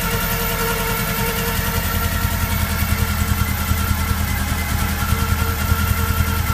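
VW Golf Mk1 engine running with a steady note. About two seconds in, its deep low hum strengthens and turns uneven. The noise is that of a head gasket blown between two cylinders.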